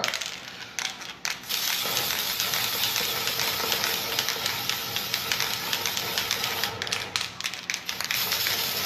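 Aerosol can of edible food colouring spraying onto a frosted cake: a steady hiss from about two seconds in, after a few light clicks at the start.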